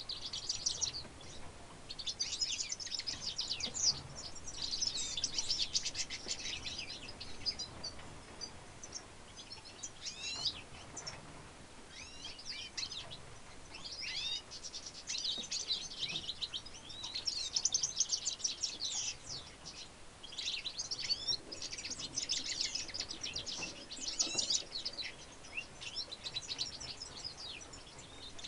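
European goldfinch × redpoll hybrid singing in long phrases of rapid, high twittering notes, with brief pauses between phrases.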